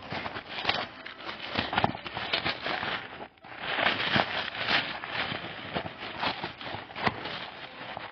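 Thin gift-wrap paper crinkling and tearing in irregular crackly handfuls as a present is unwrapped, with a brief pause about three seconds in.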